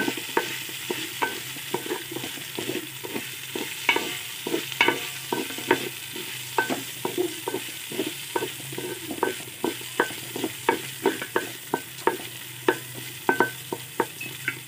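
A spatula stirring soaked rice as it fries with browned sugar in a metal pot: repeated scrapes and taps against the pot, about two or three a second, over a steady sizzle.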